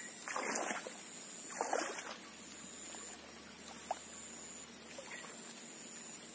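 Water splashing twice in the first two seconds as a hooked giant snakehead (toman) thrashes in the shallow swamp water near the bank, over a steady high-pitched insect buzz.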